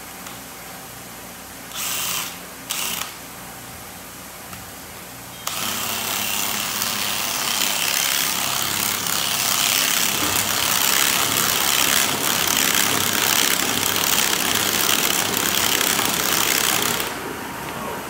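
DeWalt cordless drill, with a hammer fitted in it and pressed to the concrete floor, blipped twice briefly and then run for about eleven seconds as a loud, steady grinding whir that stops near the end.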